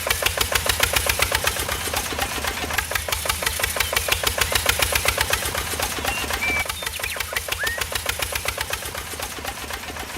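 Small engine of a miniature tractor running steadily, with an even rapid knock of about ten beats a second that eases slightly toward the end and cuts off at the close.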